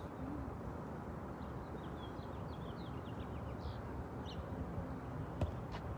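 Steady low outdoor background rumble with small birds chirping several times in the middle, and a single sharp smack of a volleyball being hit near the end.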